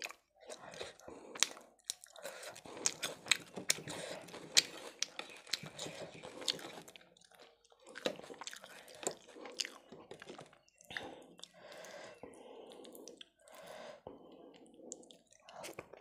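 Close-miked chewing and biting of chicken kosha curry and toasted brown bread, with many sharp wet mouth clicks. The clicks are thickest in the first half, and the mouth sounds are softer for a few seconds before the next bite near the end.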